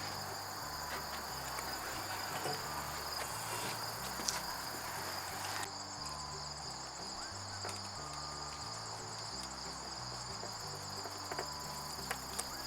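Crickets chirring steadily in a continuous high-pitched chorus, with a few faint clicks.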